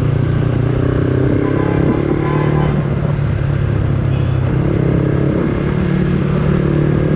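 Yamaha Sniper 135 Classic motorcycle's single-cylinder four-stroke engine running through a Replica Pro aftermarket exhaust while riding, a steady drone with small rises and dips in pitch.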